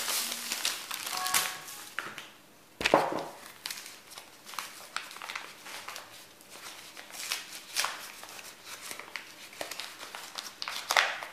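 A food packet being handled on a table: rustling and crinkling with scattered small clicks, and one heavier knock about three seconds in.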